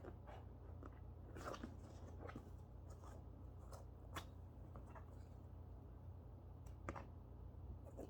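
Faint, irregular clicks and crunches of a cockatoo chewing with its beak, over a low steady hum.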